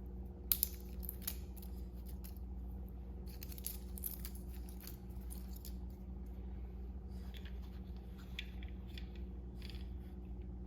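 Small plastic and metal clicks and crinkles from hands handling the microphone and a AAA battery, coming in a few short clusters, over a steady low hum.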